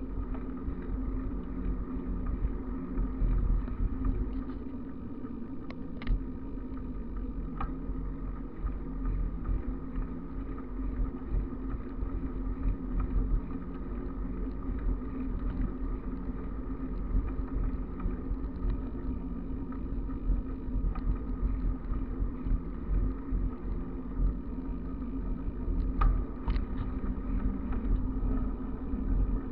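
Steady low rumble of a bicycle coasting fast downhill on asphalt: wind on the microphone and tyre noise. There are a few sharp clicks about six seconds in and again near the end.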